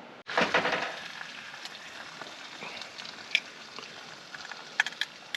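Eggs frying in a small copper non-stick pan on a camp stove: a steady sizzle, with a few sharp taps of eggshells being cracked near the end.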